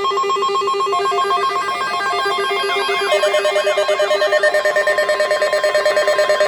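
Weather radio alert alarm for a tornado watch: several shrill, rapidly trilling and warbling electronic tones sounding together, changing about three seconds in to a steady tone with a fast, even pulsing beep.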